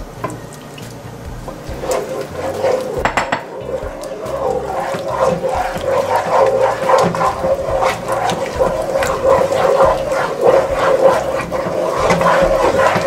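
Wooden spoon stirring thick butter-and-flour roux in a nonstick pot while milk is worked in, with a stream of milk poured in at the start. A quick, steady rhythm of wet scraping and slapping strokes that gets louder about two seconds in.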